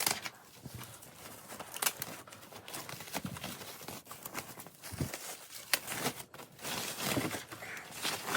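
Packaging being handled during an unboxing: scattered knocks and clicks, about one every second or so, over faint rustling of packing material.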